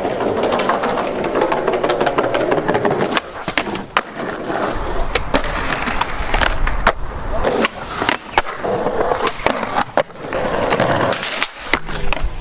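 Skateboard wheels rolling on pavement for about three seconds, then a run of sharp clacks from the board with more rolling in between.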